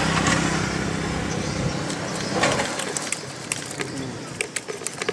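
Traffic rumble from a passing vehicle fades out over the first couple of seconds. It is followed by scattered sharp clicks and crinkles from steel pliers and hands working a hook out of a small river catfish over a plastic bucket.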